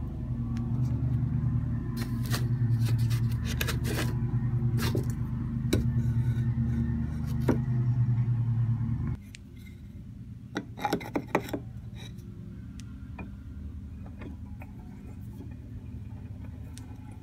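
A steady low electric motor hum with scattered light clicks and knocks from handling, cutting off suddenly about nine seconds in. After that it is quieter, with a short cluster of knocks a second or two later.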